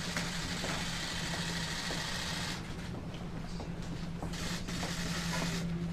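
A steady low hum under two stretches of dense clicking and rustling noise, the first ending about halfway through and the second starting near the end.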